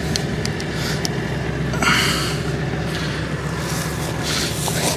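An engine idling steadily, with a man's short straining breaths about two seconds in and again near the end as he works a stuck ground stake loose.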